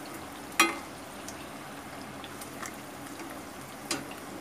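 Mathri frying gently in hot oil in an aluminium kadhai on a medium-low flame: a steady soft bubbling sizzle. A metal slotted spoon clinks sharply against the pan about half a second in, and more lightly near the end.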